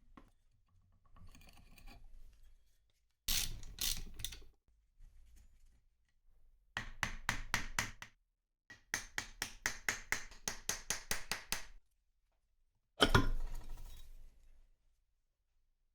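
Hammer tapping in several bursts of quick blows, about five or six a second, with short pauses between them, as the electric motor is worked on during its restoration.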